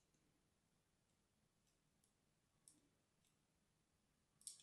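Thin blade scoring lines into a bar of soap: faint, crisp clicks as the edge catches and cuts, a few scattered ones, then a louder cluster near the end.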